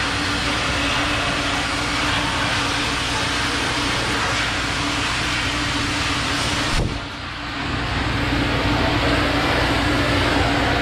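Car-wash air blower blasting air through a long corrugated hose, a steady rush with a low hum, blowing water droplets out of a car's engine bay. About seven seconds in, the rush suddenly drops for a moment and comes back duller.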